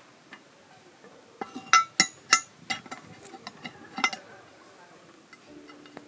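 A cluster of sharp metal clinks and clanks, some briefly ringing, as the lid of a Dutch oven is lifted off and handled. Quiet music comes in near the end.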